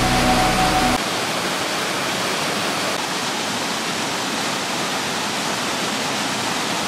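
Creek water rushing steadily over rocks, an even hiss of moving water; background music cuts off about a second in.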